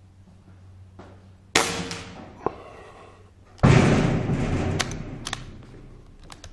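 BSA Scorpion SE .22 pre-charged pneumatic air rifle with a shrouded barrel firing: a sharp report about a second and a half in, a single click about a second later, then a louder, heavier report about three and a half seconds in that fades over a couple of seconds.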